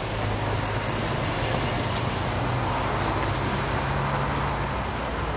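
A motor vehicle's engine running steadily, a low hum under general outdoor background noise; part of the hum drops away near the end.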